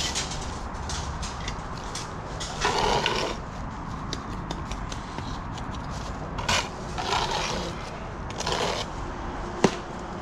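Bricklaying work: a steel trowel scraping through mortar and bricks being handled, in several short scraping bursts, with one sharp knock near the end.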